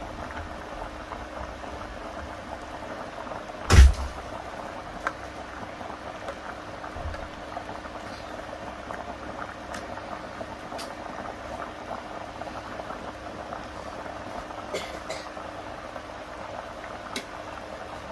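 A pot of mutton tripe and feet soup boiling, with steady bubbling. One loud knock about four seconds in, and a few light clicks later on.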